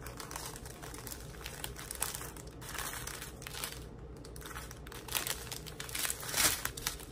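Clear plastic bags of diamond painting drills crinkling as they are handled, in irregular crackles that grow louder near the end.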